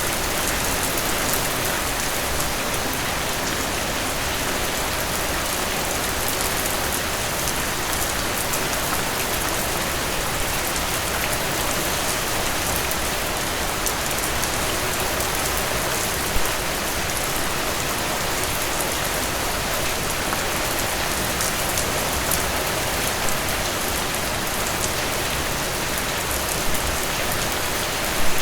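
Steady rain falling on a surface, an even hiss with scattered drop ticks and a few brief louder splashes, the later ones near the end.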